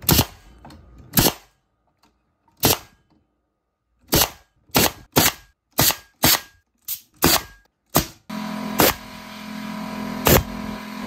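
18-gauge narrow-crown staple gun firing 1¼-inch staples into the wooden top bars of beehive frames held in a jig: about a dozen sharp shots at uneven intervals, several in quick succession. A steady hum comes in about eight seconds in.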